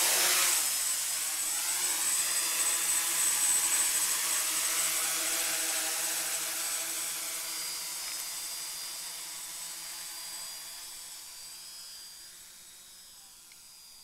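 Quadcopter's four brushless motors (Roxxy 2827-34) and 11x5 propellers running at hover and climb power with a steady multi-toned hum. It is loudest as the copter lifts off and fades steadily as it flies away.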